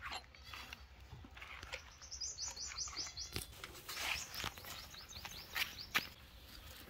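Small birds chirping in quick runs of short high notes, a little after the start and again past the middle, over scattered soft rustles and scuffs.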